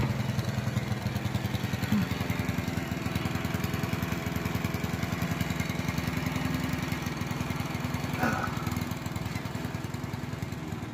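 Small single-cylinder engine of a walk-behind gas push mower running steadily with a fast, even chug.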